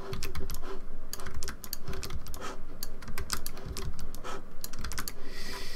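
Computer keyboard keys and mouse buttons clicking in quick, irregular succession as editing shortcuts are pressed.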